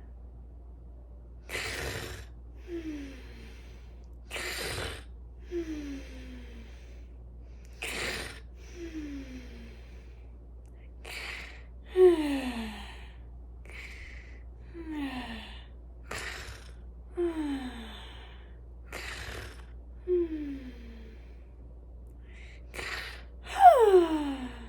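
A woman's exaggerated, cartoonish snoring: a noisy snorting inhale followed by a falling, whistling exhale, repeating about every three seconds, eight times, the last one loudest.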